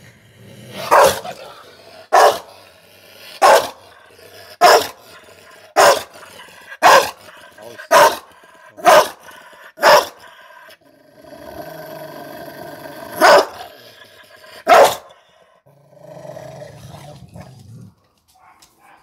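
Rottweiler barking aggressively: nine sharp barks about a second apart, then a drawn-out snarling growl, two more barks, and a lower growl near the end.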